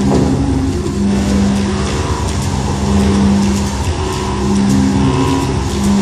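Eurorack modular synthesizer playing experimental generative music: a low droning tone that swells and fades about every two seconds over a dense rumble, with held higher tones and scattered crackling clicks.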